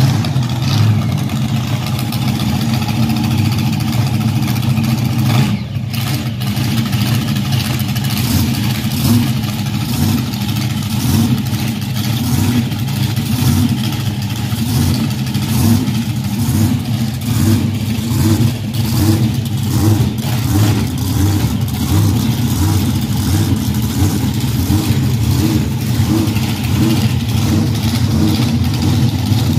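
Monster truck engines running loud and rough, idling and revving as the trucks pull away. In the second half the engine note rises and falls about once a second.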